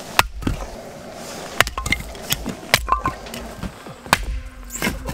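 Irregular sharp knocks and clicks over a low rumble, the loudest coming at uneven intervals about every second or so.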